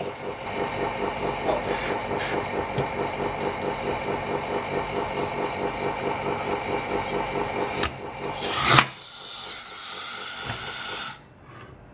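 A small electric motor or pump running steadily with a fast, even pulsing, about four pulses a second, then cutting off near the end just after a couple of sharp knocks.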